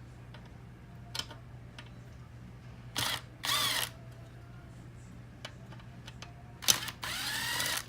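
Small electric power driver spinning Torx screws out of a Ford Sync 2 navigation unit's housing, in two brief runs, about three seconds in and again near the end, its pitch rising and falling as it spins up and slows.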